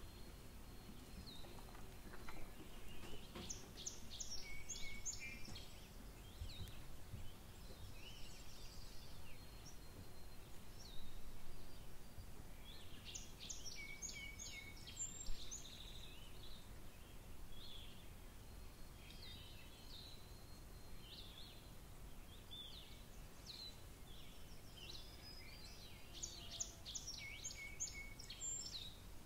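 A bird singing the same short song of quick, high notes three times, roughly every eleven seconds, with scattered short chirps in between, over a low outdoor background rumble.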